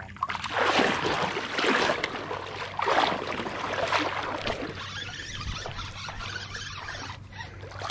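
River water swishing and sloshing around an angler's legs as he wades, in rough surges about once a second that ease off after the first few seconds into a softer steady wash.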